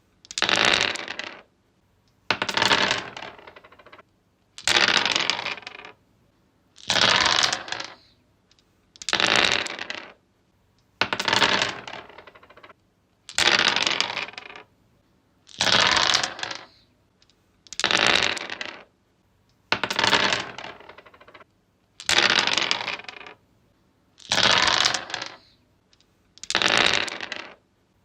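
Dice rolled again and again on a wooden surface: each roll is a quick clatter of small hard knocks that tapers off over about a second and a half, with a short pause before the next, about thirteen rolls in all.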